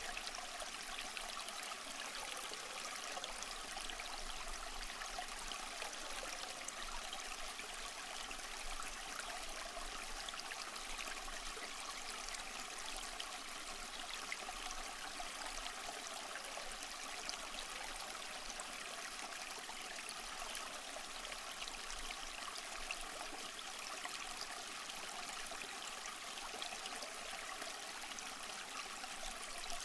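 Soft, steady rain: an even wash of countless small drops falling without let-up.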